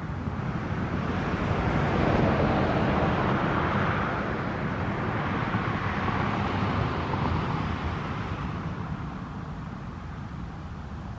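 A vehicle passing by: a rush of noise that builds over about two seconds, holds, and then slowly fades away.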